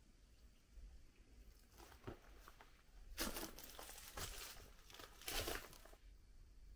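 Footsteps crunching on loose rubble and dry debris: a few faint crunches, then louder crunching from about three seconds in that stops about six seconds in.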